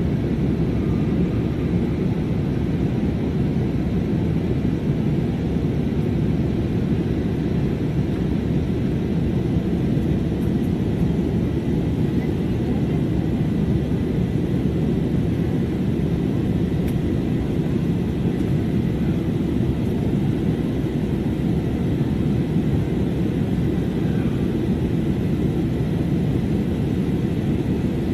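Steady cabin noise inside a jet airliner in flight: a constant low rumble of engines and airflow, with a faint high steady tone above it.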